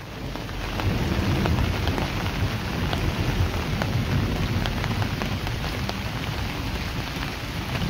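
Heavy rain pouring down onto flooded ground, with a deep rumble underneath. It swells up over the first second, then stays loud and steady.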